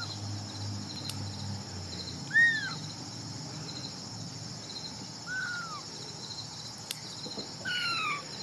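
Insects chirping steadily in a high, pulsing chorus, with a few short, high arched chirps; the loudest comes about two and a half seconds in. Two sharp clicks, about a second in and near the end, are the nail clippers snipping the ends off a kitten's claws.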